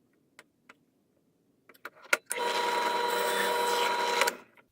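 A few light clicks, then a drill press motor runs steadily for about two seconds with a whine as a 9/32-inch bit bores a hole into a wooden block, then stops.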